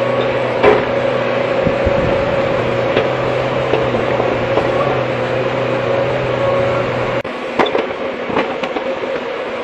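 Hydraulic excavator running, a steady mechanical whine over its engine, with scattered metallic clanks and knocks. The low engine hum cuts out suddenly about seven seconds in, after which the clanks come more often.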